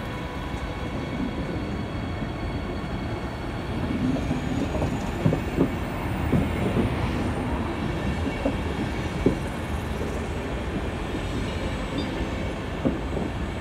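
Deutsche Bahn Intercity coaches rolling past as the train pulls out: a steady rumble of wheels on rails that grows louder about four seconds in, with irregular clacks from the wheels.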